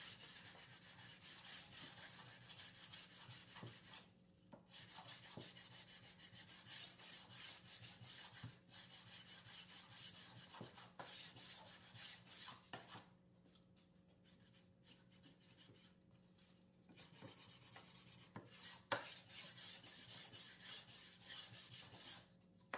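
Hand-sanding bare pine wood with sandpaper in quick back-and-forth strokes. The strokes pause for a few seconds a little past halfway, then resume, with one sharp knock soon after.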